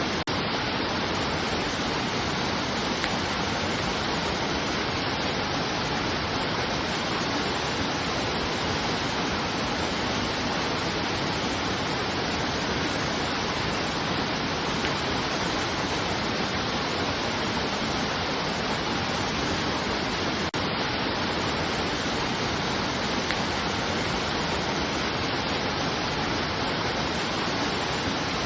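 Steady, even rushing of running water, like a waterfall, with no change in level apart from a momentary dropout about twenty seconds in.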